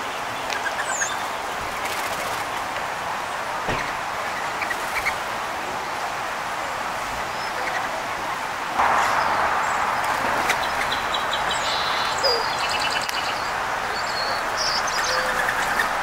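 Small songbirds chirping and twittering in short, scattered calls over a steady background rush, which gets louder about halfway through.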